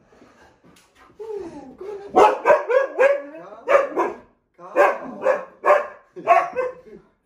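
Adult Siberian huskies vocalising excitedly: a whine that slides in pitch, then a string of about a dozen loud, high barks in quick groups.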